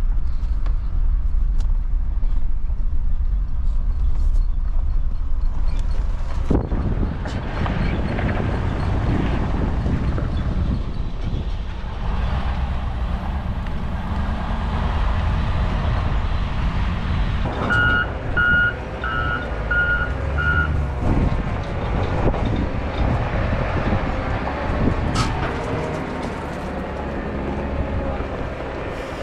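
Dump truck's engine running as it rolls slowly across a weigh scale. A backup alarm beeps five times about two-thirds of the way through.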